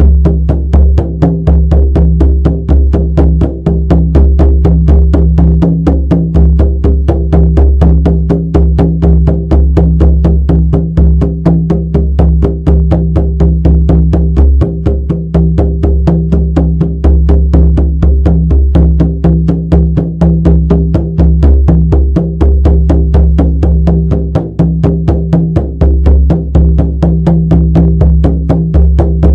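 Shamanic frame drum beaten in a fast, steady, unbroken rhythm, each stroke leaving a deep booming resonance.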